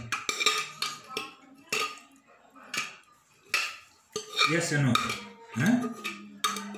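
A metal spoon clinking and scraping against stainless steel plates and bowls during a meal, in a dozen or so sharp, irregular clinks. Short vocal sounds come in the second half, ending in a held hum-like tone.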